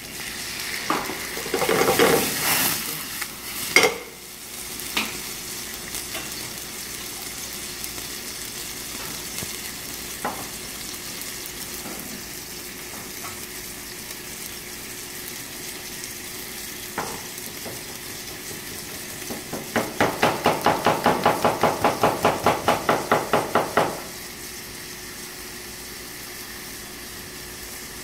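Apple slices sizzling in a frying pan over a gas burner, with a louder burst of hissing in the first few seconds as white wine goes into the pan. Near the end a knife chops quickly on a plastic cutting board, about five even strokes a second for four seconds.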